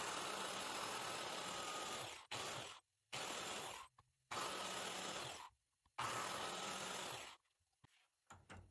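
Biscuit joiner running and plunging its blade into a hickory-veneered pine board to cut a handhold. The motor and cutting noise comes in five stretches that start and stop abruptly; the first runs over two seconds and the others one to one and a half seconds.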